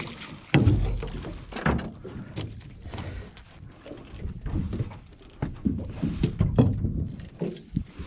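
Irregular knocks and thumps on a small fibreglass boat, some sharp and loud, over a low rumble.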